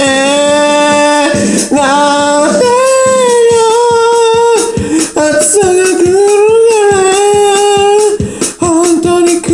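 A man singing long held notes with no clear words, sliding between pitches, over an electronic keyboard's steady preset drum rhythm.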